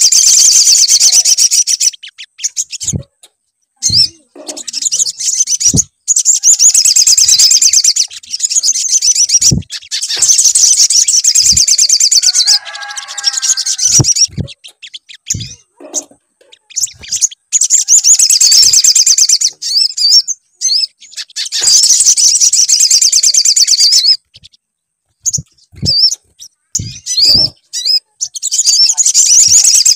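Sogon song played as a lure recording: loud bursts of rapid, high twittering chatter, each a few seconds long, separated by short pauses. Scattered sharp clicks fall in the gaps, and a brief lower-pitched call comes just after the middle.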